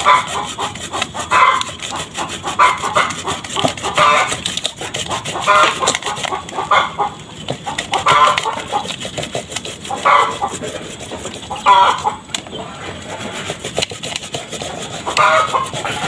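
Chickens clucking loudly every second or two, over the quick scraping strokes of a fresh rhizome being rubbed on a hand grater.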